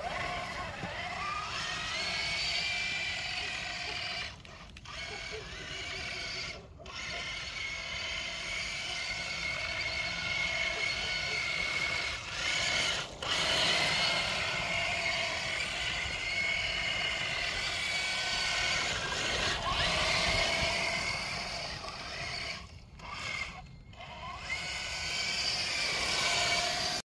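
Electric motor and gear whine of a 1/10-scale Traxxas TRX-4 Defender RC crawler, rising and falling in pitch with the throttle as it drives through slush and water, dropping out briefly a few times when the throttle is released.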